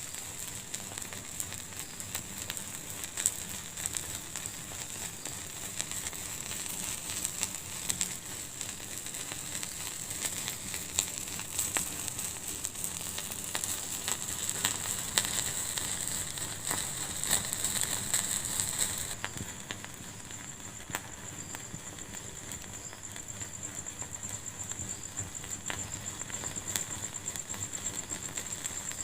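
Wood fire in a fireplace crackling steadily, with many sharp irregular pops over a soft hiss. About two-thirds of the way through, the sound abruptly turns a little quieter and duller.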